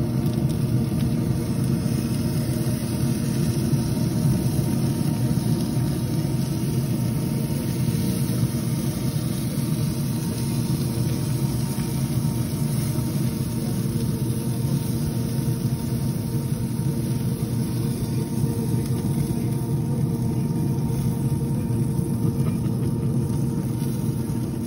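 Steady low mechanical rumble with a faint constant hum running underneath, unchanging throughout.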